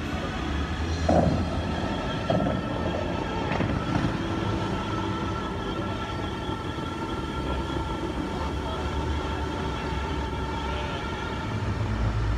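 Bellagio fountain water jets rushing and splashing over a steady background of held tones and low rumble. There are a few short, louder bursts in the first four seconds.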